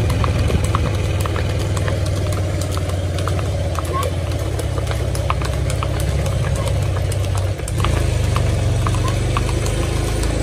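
Several horses' hooves clip-clopping on a tarmac road, a few sharp clicks a second, over a steady low rumble that is louder than the hooves.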